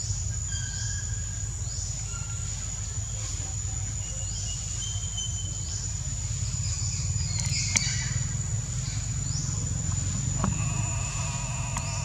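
Forest ambience: a steady high insect drone with short chirps over a low rumble. Near the end a brief whining animal call is heard.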